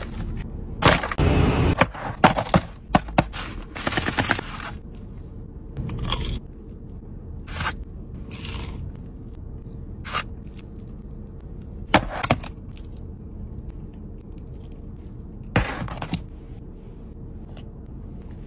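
Aluminium foil takeaway tray scraped and crinkled by a hand scooping up rice, in a few loud bursts over the first four seconds. Then come scattered brief scrapes and rustles.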